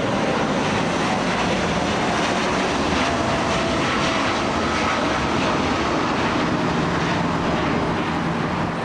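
Jet airliner engines running loud and steady as an aircraft passes, a broad rumble with a faint whine that slowly drops in pitch.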